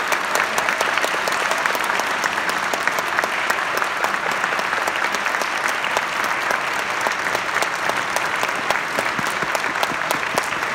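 Audience applauding steadily: dense, even clapping from a full auditorium.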